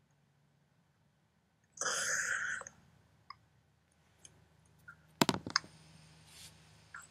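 A quick run of sharp computer clicks a little after five seconds in, with a few fainter ticks. A short hissy burst comes about two seconds in.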